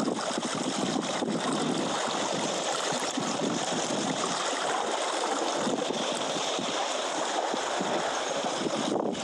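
Steady rush of sea water washing against rocks.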